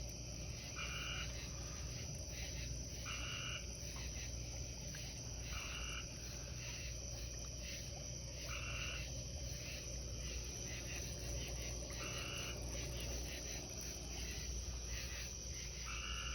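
A tree frog calling: six short calls, each about half a second, repeating every two to four seconds.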